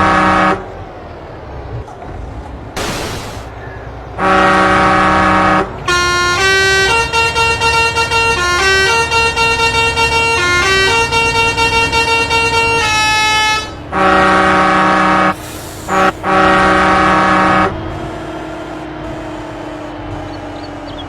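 Telolet musical air horn on a truck. It gives long blasts of a steady chord, then plays a quick tune of changing notes for about seven seconds, then more long chord blasts. Near the end the horn stops and a lower engine tone runs on, slowly falling in pitch.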